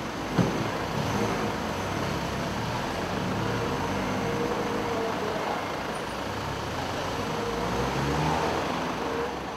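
A car door shuts with a sharp thud about half a second in, then car engines run and pull away, their pitch shifting as the cars move off along the street.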